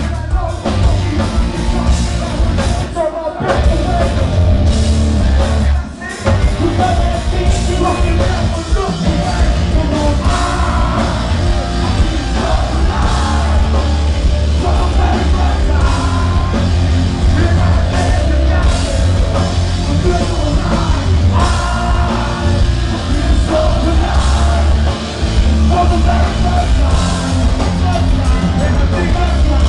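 Live rock band playing loud and heavy, with drums, bass and guitars under a vocalist singing and shouting into the microphone. The band stops short twice, about three and six seconds in, before crashing back in.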